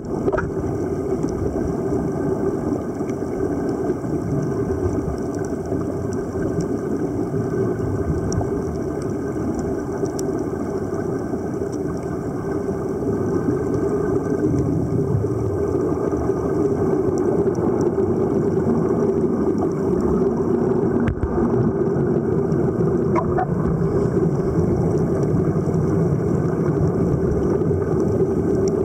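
Low, steady underwater rumble picked up by a camera in an underwater housing, with no voices. It grows a little louder about halfway through, and there is a single faint click about two-thirds of the way in.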